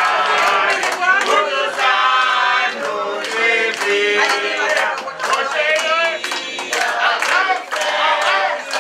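A group of people singing together, clapping their hands in time about twice a second.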